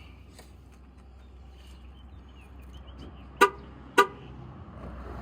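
2004 Ford Mustang's horn chirping twice in quick succession as the remote lock button is pressed, a sign that the freshly fitted battery terminals are carrying power. A low steady hum runs beneath.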